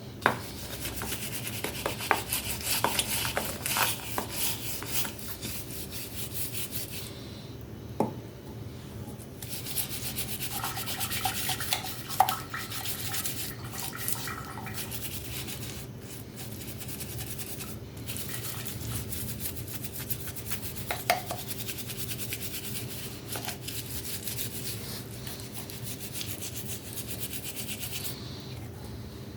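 Scratchy abrasive rubbing on a hard object's surface in long steady stretches, with a pause of about two seconds near a quarter of the way in and a few sharp knocks. A faint steady hum runs underneath.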